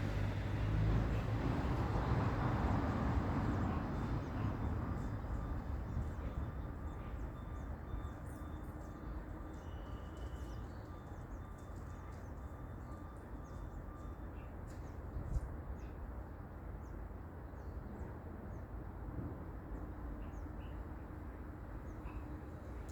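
Outdoor background: a vehicle rumbles past in the first few seconds, then a steady low noise remains with faint, short high bird chirps scattered through it.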